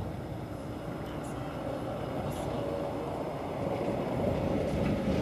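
Distant engine noise: a low rumble with a steady hum, growing louder in the second half.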